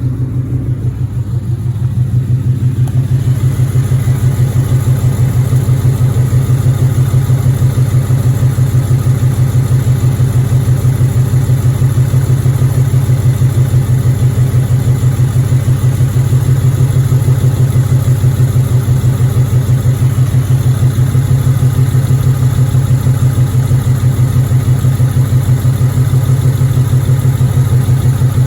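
Ford Mustang GT's 5.0 V8 idling steadily through a loud exhaust, with an even low pulse. It is being listened to for the Coyote's typewriter tick after an oil-additive treatment, and the owner hears no tick.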